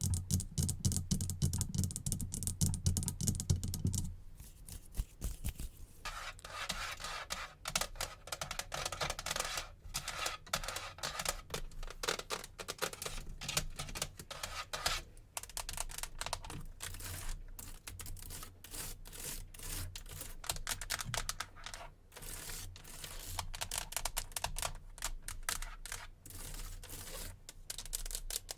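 Fast, dense tapping and clicking ASMR trigger sounds. A heavier tapping with a deeper thud stops about four seconds in, and lighter rapid clicking carries on.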